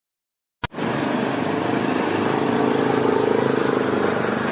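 A vehicle engine running steadily, cutting in suddenly after silence a little under a second in.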